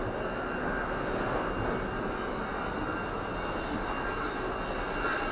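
Steady background rumble and hiss, with no distinct knocks or voices.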